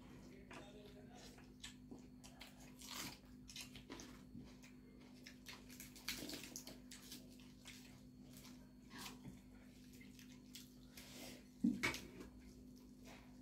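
Close-up eating sounds: chewing and lip smacks, and hands squishing rice on steel plates, in short irregular bursts. There is a sharper click about twelve seconds in, over a steady low hum.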